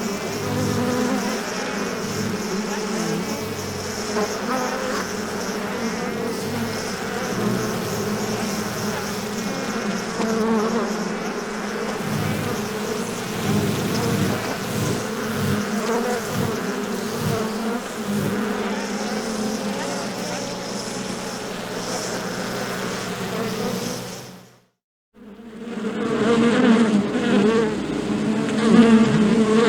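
Bees buzzing together in a dense, steady hum of many wings. The hum cuts out for about a second near the end, then a louder swarm hum resumes.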